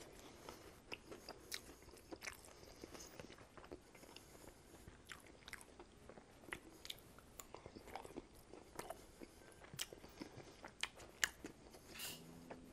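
Close-miked chewing of sauce-dipped honey barbecue chicken wing pieces: faint, wet mouth clicks and smacks scattered throughout.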